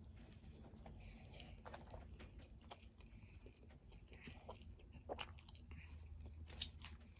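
Faint chewing of a bite of turkey burger on toasted bread: soft, scattered mouth clicks and smacks, with a few sharper ones about five seconds in and near the end.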